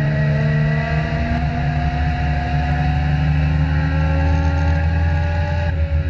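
Legend car's four-cylinder Yamaha motorcycle engine running hard, heard from inside the cockpit, its pitch climbing slowly as the car accelerates down the straight, then easing off slightly near the end as the driver lifts.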